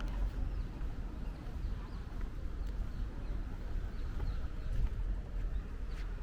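Small birds chirping repeatedly in short high calls over a low steady rumble, with a sharp click near the end.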